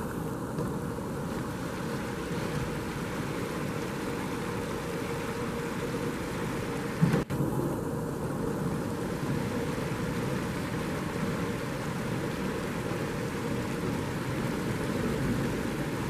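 Shallow river water rushing steadily over a stony bed past ice floes. A brief thump comes about seven seconds in.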